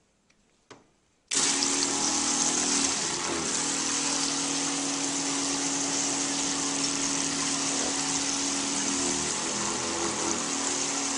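A 12-volt Flojet water pump switches on suddenly about a second in and runs steadily with a low hum, driving a hard spray of water from a shower head into a bucket at strong pressure.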